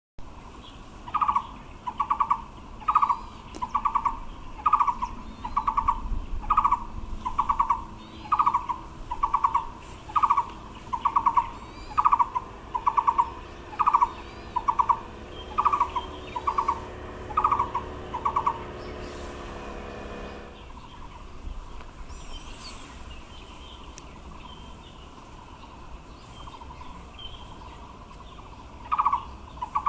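Taiwan barbet calling: a long, even run of low notes, each a quick trill, about three every two seconds. The series stops after about eighteen seconds and starts again near the end.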